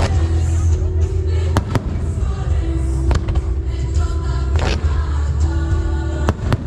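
Aerial fireworks exploding: sharp bangs every second or two over a continuous deep rumble of bursts, with music playing underneath.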